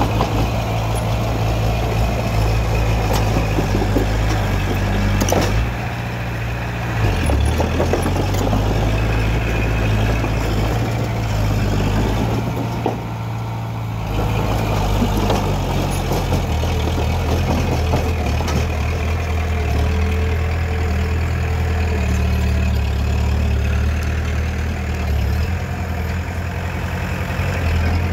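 Heavy diesel engine of a construction machine running under varying load. Its level drops off briefly twice and picks up again, with a few short knocks and clanks.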